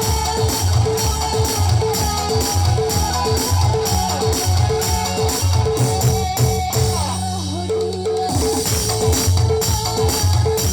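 Band music with a steady beat: drum kit, tambourine and guitar playing together. The drums drop out briefly about seven seconds in, then the beat comes back.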